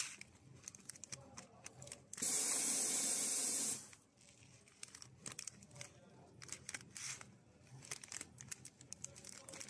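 Plastic-film pillow bag crinkling as a hand squeezes and turns it. About two seconds in, a loud, steady hiss lasts about a second and a half.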